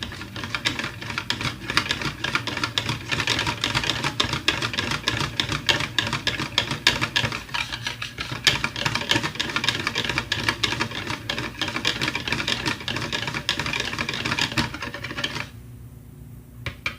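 Batter being stirred briskly in a bowl, a utensil clicking and scraping rapidly against the bowl's sides. The stirring stops near the end.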